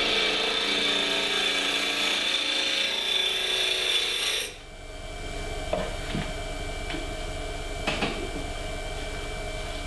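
Turning tool cutting into olive wood spinning on a lathe, a steady scraping hiss that stops abruptly about four and a half seconds in. The lathe then runs on with a steady hum and a few light knocks.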